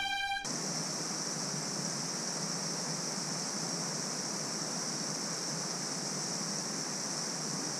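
Small mountain creek running over granite: a steady rush of flowing water. A music chord cuts off about half a second in.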